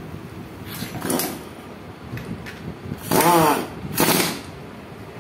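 Impact wrench driving bolts into a gearbox casing in short bursts: a brief one about a second in, then a longer burst whose pitch rises and falls about three seconds in, and another just after.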